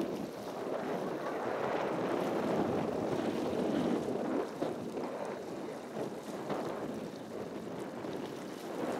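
Wind blowing across the camera microphone: a steady rushing noise that swells and eases slightly.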